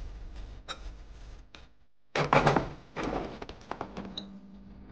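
Chopsticks stirring sticky sugar-coated walnut kernels in a glass bowl, with light clicks. About two seconds in, the walnuts are tipped out onto a paper-lined metal baking tray with a loud thunk, followed by a clatter of kernels dropping onto the tray.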